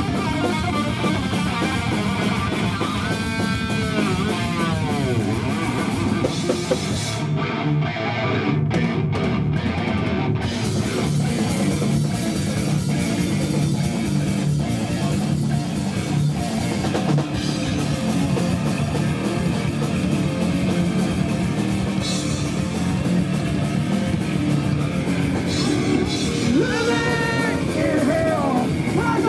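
Thrash metal band playing live: distorted electric guitars over a fast drum kit. About three seconds in, a guitar's notes glide down in pitch, and near the end shouted vocals come in.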